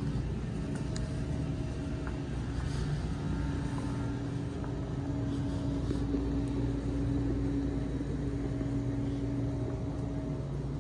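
Steady low mechanical hum with a few held tones over a low rumble, unchanging throughout.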